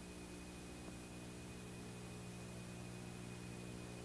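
Steady low electrical hum with hiss and a faint thin high tone. It is the background noise of the soundtrack, with no zipper or handling sound to be heard.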